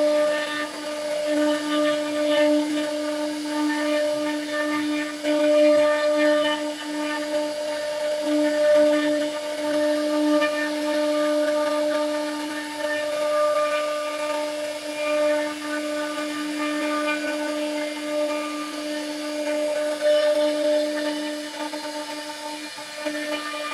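CNC router spindle running with a steady high whine while its bit cuts into wooden frame rails, the pitch holding constant under a rough rasp of cutting.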